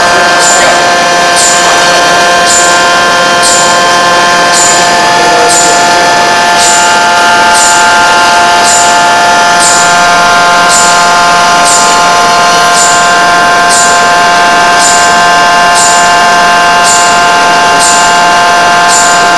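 Forging machine running: a steady whine made of several high tones, with a short high tick about once a second.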